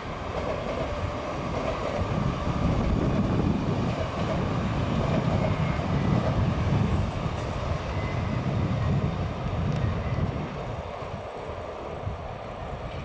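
NS VIRM double-deck electric train running over a railway bridge, a steady low rumble of wheels on the rails that swells and then eases off near the end.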